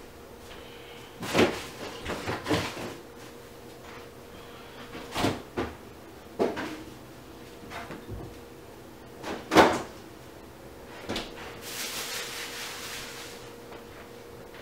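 Irregular knocks and thuds from household handling, about eight in all, the loudest about ten seconds in. A brief hiss follows near the end, over a faint steady hum.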